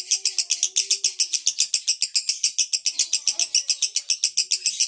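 Male lovebird singing a fast, steady run of harsh, high chattering pulses, about ten a second: the buzzing song style that fanciers call 'konslet' (short-circuit).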